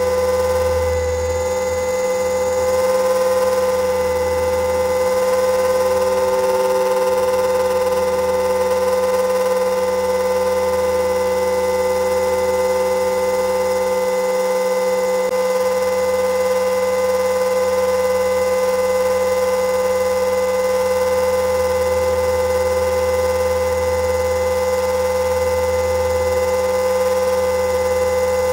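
Battery-electric RC helicopter's motor and rotor heard from onboard: a steady whine with a low, wavering rotor hum under it, the pitch holding constant.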